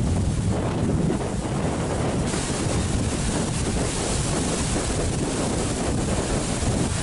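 Cyclone-driven storm surf crashing and rushing, with strong wind buffeting the microphone in a low rumble. The hiss of the water turns brighter a little after two seconds in.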